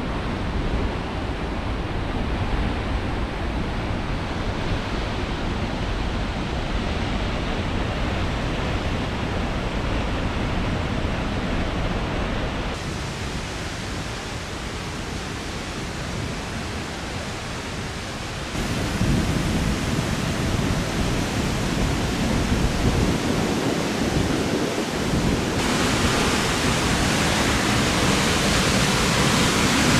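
Steady rushing of the Kurobe River's rapids below the gorge path, a continuous noise that shifts abruptly in level and tone a few times and grows louder toward the end.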